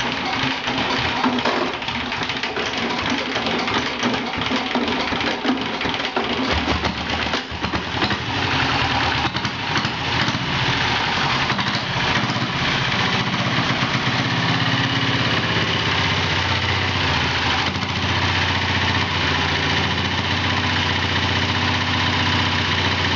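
Single-cylinder diesel engine of a diesel-converted Royal Enfield Bullet motorcycle being started: it turns over with irregular knocks, catches about six to seven seconds in, and settles into a steady idle.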